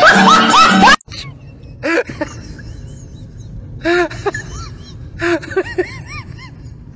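Plucked-string, banjo-like music stops abruptly about a second in. Then come three clusters of short, whiny calls, each rising and falling in pitch, over a low steady hiss.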